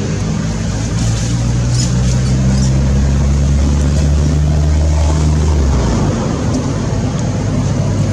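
A low, steady motor hum over a broad background noise; the hum shifts pitch about a second in and its deepest part stops about six seconds in.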